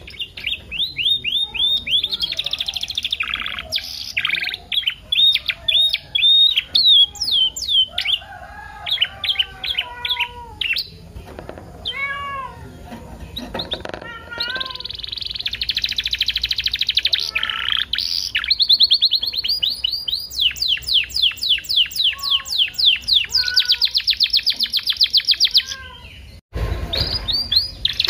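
Domestic canary singing a long, varied song of rapid trills, chirps and rising whistled notes, packed with 'isian' phrases. The song breaks off briefly near the end.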